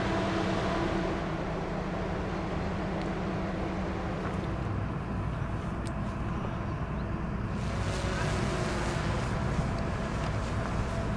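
Passing cruise ship's engines and machinery droning steadily: a low hum with a few steady tones above it.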